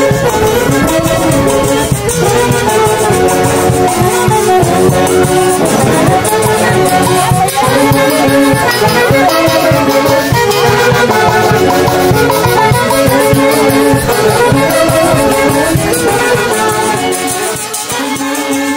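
Festive dance music with a steady beat and melody instruments playing over it.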